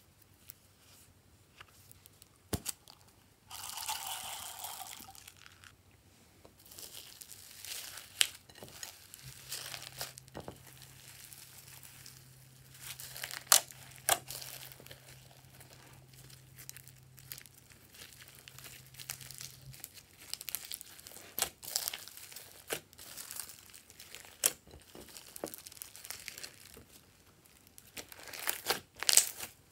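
Foam beads and glitter mixed into slime by hand, with irregular sharp clicks, pops and crunches as the slime is pressed and squeezed. About four seconds in there are two seconds of steady rustling, as pink foam beads are poured from a plastic bottle.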